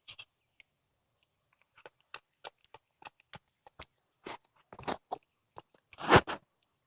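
A cat chewing and crunching through a squirrel: after a quiet start, sharp crunches come a few times a second, the loudest about six seconds in.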